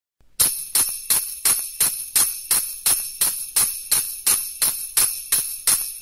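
Bright jingling percussion, like sleigh bells, struck in an even beat about three times a second, beginning a fraction of a second in: the opening of a pop song, with no other instruments yet.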